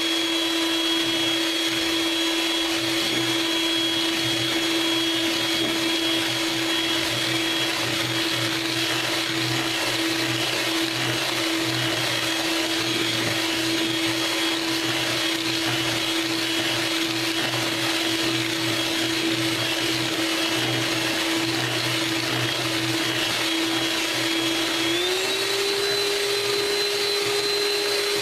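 Electric hand mixer running steadily, its beaters whipping egg yolks and sugar in a plastic bowl until the mixture turns pale. The motor's whine holds one pitch, then steps up a little about three seconds before the end.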